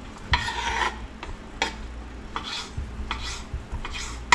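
Kitchen knife cutting raw fish fillet into chunks on a bamboo cutting board: a short scraping stroke near the start, then a series of soft taps as the blade meets the board, with a sharper knock at the end.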